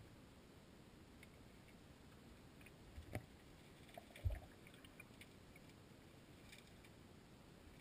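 Near silence recorded underwater in a creek: faint scattered clicks and ticks, with two short dull thumps about three seconds and four seconds in, the second the louder.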